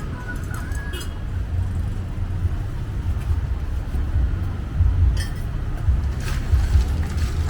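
Steady low rumble of road traffic, with a few light clinks about a second in and again around five and six seconds in.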